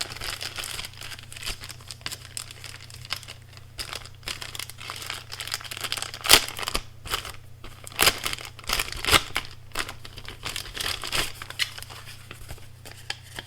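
Box packaging crinkling and rustling as a box is unpacked, a steady run of crackles with a few louder sharp ones a little past the middle.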